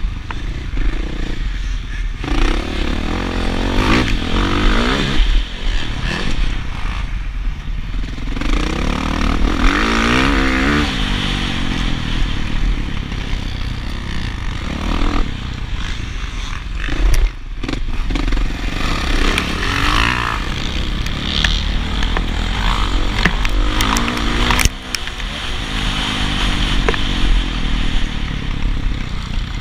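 Motocross dirt bike engine revving hard and backing off again and again, its pitch climbing and dropping every few seconds through corners and straights.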